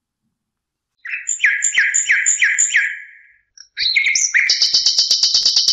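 Bird-like chirping as outro music begins: about a second in, five falling chirps in quick even succession, then a fast high trill with rapid clicking that runs on.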